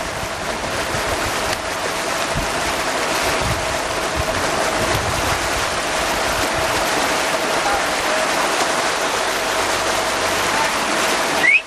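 Motorboat underway: a steady rush of water and wind noise, with a thin, steady whine running under it. It breaks off abruptly near the end.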